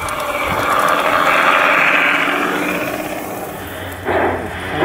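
G-scale model railbus running past on garden-railway track: a rushing rumble of wheels on rail and motor hum that swells to its loudest about a second and a half in, then fades.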